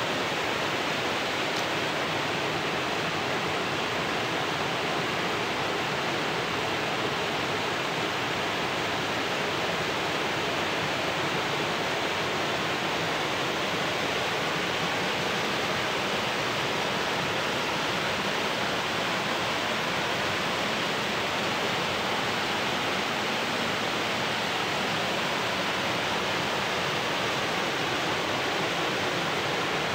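Small waterfall pouring down a rock slope into a pool: a steady, even rush of falling water.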